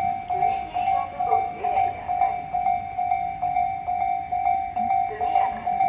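Japanese railway level-crossing warning bell ringing, an even clanging tone repeated about three and a half times a second.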